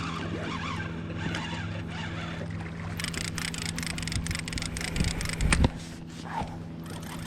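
A boat's engine hums steadily underneath. From about three seconds in, a fishing reel clicks rapidly as a lingcod is fought toward the boat, and a couple of heavy thumps come about five seconds in.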